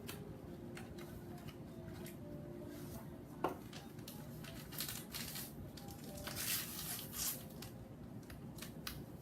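Faint rustling and snipping as a packet of dry Jello gelatin powder is opened, with a sharp click about three and a half seconds in and a longer rustle around six to seven seconds.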